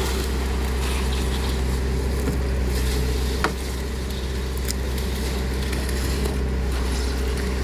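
Heavy engine running steadily at a constant speed, a low even drone, with a single sharp click about three and a half seconds in.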